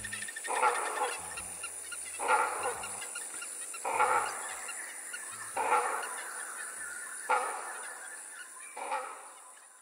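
A honking, goose-like call repeated about every second and a half over low bass notes, fading out near the end.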